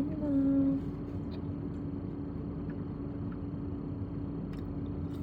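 A person's voice holding a sung or hummed note for under a second at the start, then a steady low hum over background noise.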